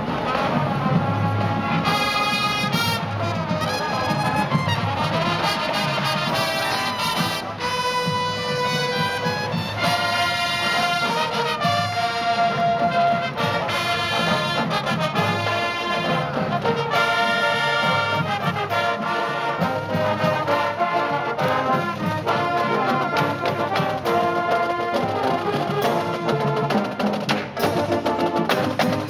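Marching band playing a tune: trumpets and sousaphones in full brass over a steady beat from snare and bass drums.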